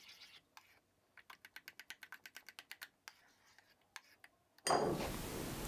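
Metal spoon stirring a thick quark and labneh cream in a ceramic bowl: a quick run of faint clicks and scrapes against the bowl, about five a second, that stops a little past the middle. Near the end a steady hiss comes in suddenly.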